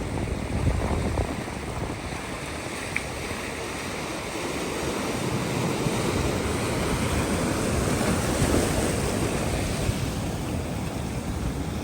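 Ocean surf washing onto a beach, with wind rumbling on the microphone. The wash swells about halfway through and eases off near the end.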